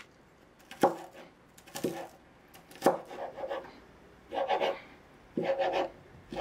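Kitchen knife cutting strips of sliced pork on a plastic cutting board. Three sharp knocks of the blade on the board come about a second apart, then two longer slicing strokes near the end.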